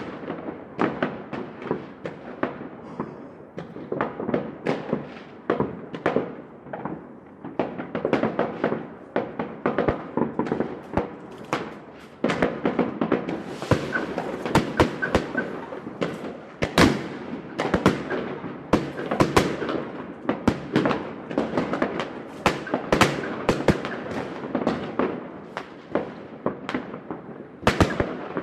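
Fireworks going off in a dense, continuous barrage of sharp bangs and crackles, several a second, growing louder and denser about twelve seconds in.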